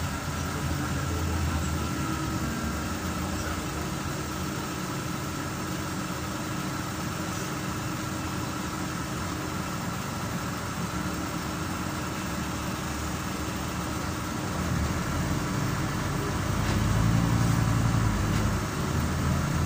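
Scania CN270UB city bus heard from a passenger seat in the cabin: a steady engine hum with road noise as it drives, growing louder about three quarters of the way through.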